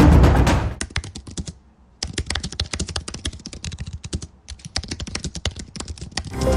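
Rapid typing on a computer keyboard: a dense run of key clicks, pausing briefly twice. The tail of a music track fades out in the first second.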